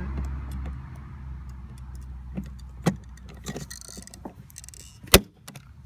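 Hand pop-rivet gun being squeezed, with small clicks from its jaws and handles, then one sharp loud snap about five seconds in as the rivet's mandrel breaks off and the rivet sets.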